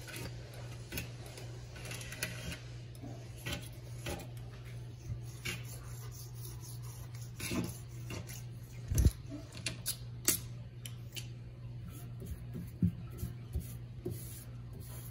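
Scattered light clicks, taps and scrapes of fingers working along a stainless steel sink rim, picking away old silicone caulk, with a louder thump about nine seconds in. A steady low hum runs underneath.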